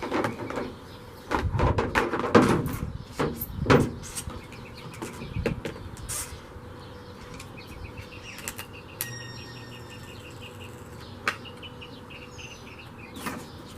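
A run of knocks, clunks and rattles from parts of the Jeep's top and frame being handled, thinning out after about six seconds, with birds chirping in the background.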